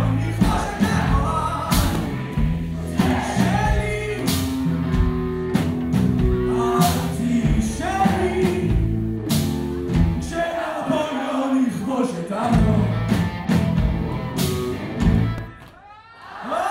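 Rock band playing live with a sung vocal over bass and drums. The band drops back briefly near the end, then comes in loud again.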